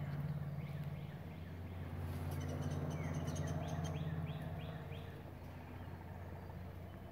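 A songbird singing a short phrase of about five quick down-slurred notes, over a steady low hum.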